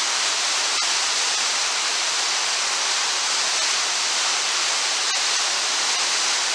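Whitewater river rapids: steady rushing of fast-flowing water.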